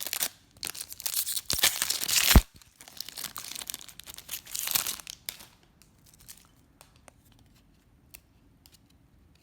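A trading-card pack wrapper being torn open and crinkled, with the loudest rip about two seconds in. The tearing stops about five seconds in, leaving only faint scattered clicks.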